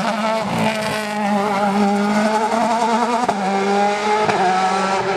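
Opel touring race car accelerating hard, its engine note climbing and then dropping sharply with upshifts about three and four seconds in.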